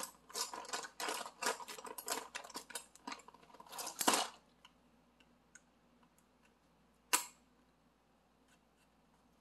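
A blush's cosmetic packaging being worked open by hand: a run of quick clicks and rustles for about four seconds, then quiet apart from one sharp click about seven seconds in.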